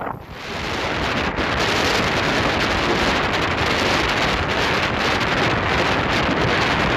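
Strong wind buffeting the microphone over sea surf breaking on a rocky shore: a loud, steady rushing that builds up over the first second.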